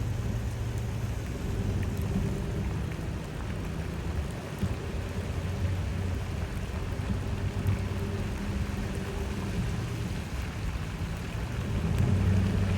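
Heavy rain falling steadily, with scattered drop ticks and a low, steady rumble underneath.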